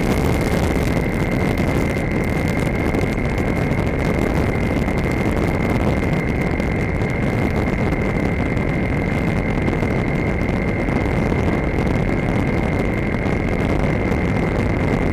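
Skywalker RC plane's motor and propeller running steadily in flight, a constant high whine over a steady rush of noise.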